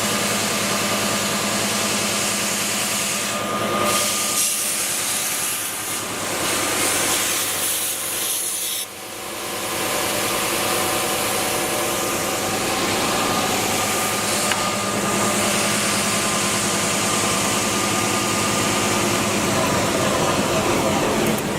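Timesaver 37" single-head wide belt sander running with a 76-grit belt, grinding a plasma-cut steel part as it feeds through: a steady machine hum under a rough grinding hiss. The sound briefly drops off about nine seconds in, then picks up again.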